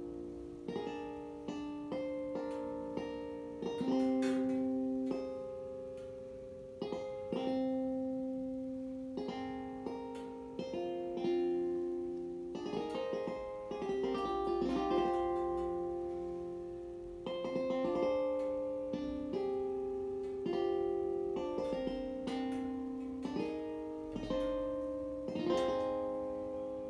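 Gentle synthesized harp tones from a capacitive-touch steel-wire circuit sculpture, generated in Pure Data on a Bela board. Soft plucked notes, a note or a few every second or so, each starting sharply and dying away, overlap into slow, shifting chords as the wires are touched.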